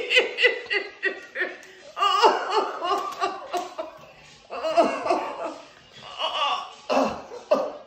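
Hearty laughter in short repeated bursts, several a second, coming in a few bouts.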